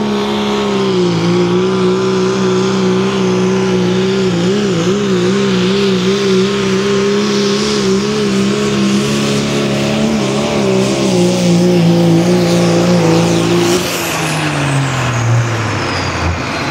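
Pulling vehicle's engine running at high revs under load during a pull, its pitch steady apart from two brief wavers, then falling away over the last few seconds as the engine winds down.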